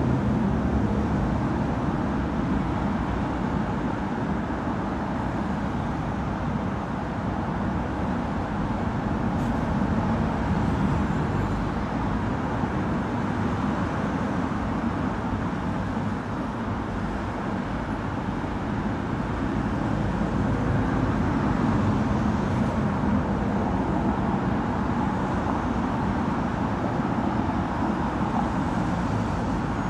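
Steady traffic on a busy multi-lane expressway: a continuous wash of tyre and engine noise that swells gently now and then as bunches of cars pass.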